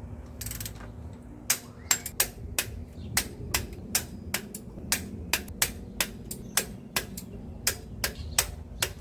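Ratchet wrench clicking steadily, about three sharp clicks a second, as engine bolts are tightened down to torque.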